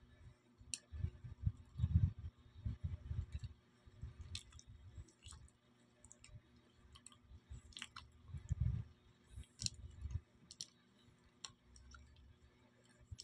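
A person chewing a mouthful of banana close to the microphone: irregular soft low thuds with a scattering of short, sharp mouth clicks.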